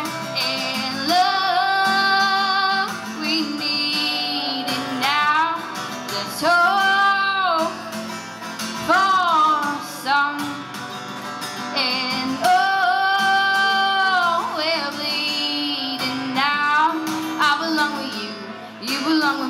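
A woman singing long held, sliding notes over her own strummed acoustic guitar.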